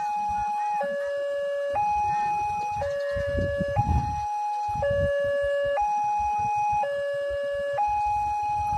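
Railway level-crossing warning alarm from the pole-mounted loudspeaker, a two-tone high-low signal that switches pitch about once a second, sounding while a train is due.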